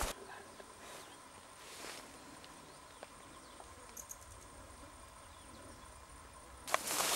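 Faint outdoor ambience with a steady thin high tone and a few tiny ticks. Near the end, footsteps swishing through tall dry grass start loudly.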